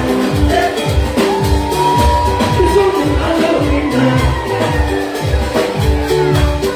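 Live dance music with a steady kick-drum beat, about two beats a second, and a man singing into a microphone over it.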